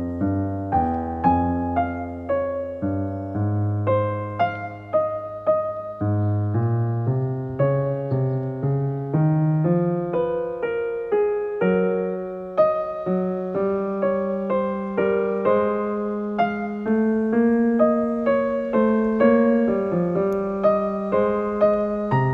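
Background piano music: a gentle, steady run of single notes and chords.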